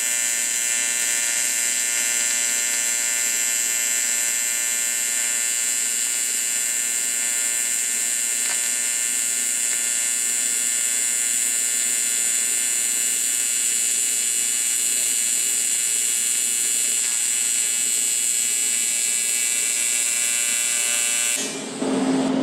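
AC TIG welding arc on aluminum, at up to 148 amps under foot-pedal control, making a steady, even buzz as a horizontal fillet weld is laid with 4043 filler rod. The buzz cuts off suddenly about a second before the end, giving way to a steady low hum.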